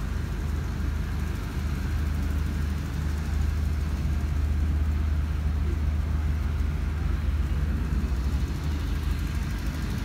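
A steady low engine rumble that runs on without change.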